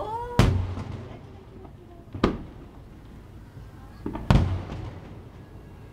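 Aerial firework shells bursting overhead: three booming bangs about two seconds apart, each trailing off in a rumbling echo, with a small pop just before the third.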